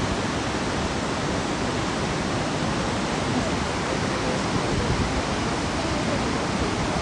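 Waterfall roaring: a steady, dense rush of falling water with no breaks.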